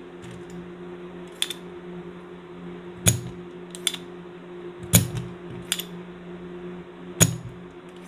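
Spring-loaded desoldering pump (solder sucker) being cocked and fired at solder joints on a circuit board: six sharp snaps, the loudest about three, five and seven seconds in, over a steady low hum.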